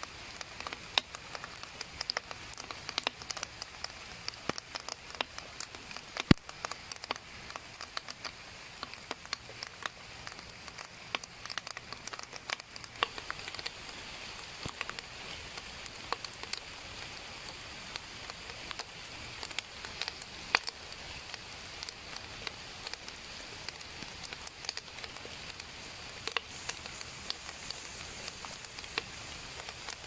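Small open wood fire crackling and popping in dense, irregular sharp snaps over a steady sizzling hiss from a coconut snail roasting in its shell on the fire. One louder pop comes about six seconds in.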